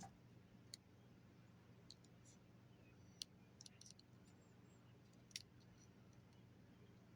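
Near silence with a few faint, scattered clicks and light taps of small objects being handled, over a low steady hum.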